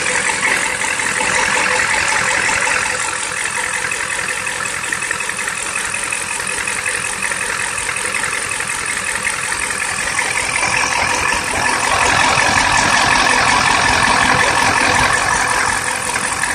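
International 7.3 IDI V8 diesel idling steadily, heard close up at the front of the engine, with the alternator V-belt running over a newly added idler pulley. It grows somewhat louder for a few seconds in the second half.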